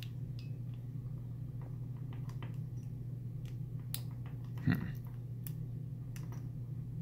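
Lock pick and tension wrench working in the keyway of a Master Lock lockout padlock: scattered faint metallic clicks and ticks as pins are probed and set, over a steady low hum, with one slightly louder knock about halfway through.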